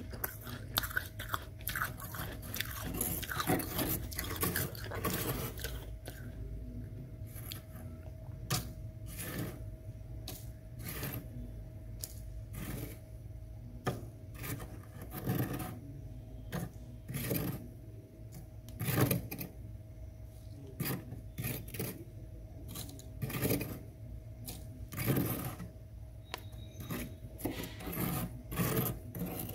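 A metal spoon scraping and digging into thick, soft freezer frost: repeated crunchy scrapes, a dense run at first and then a stroke every second or two. A faint steady hum runs underneath.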